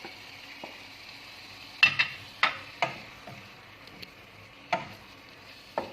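Seafood and chopped vegetables sizzling in olive oil in a pan while being stirred, with a utensil knocking sharply against the pan several times, mostly from about two seconds in.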